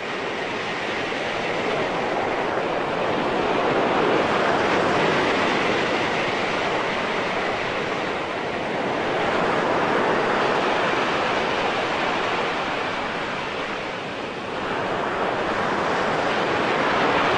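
Steady rush of ocean surf, waves washing in and out so that the noise slowly swells and eases.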